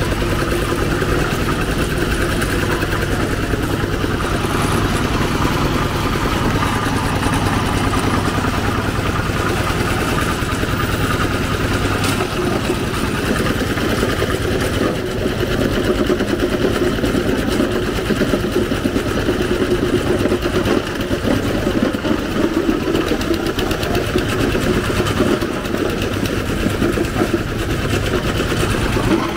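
Street traffic with engines running steadily and a constant low drone.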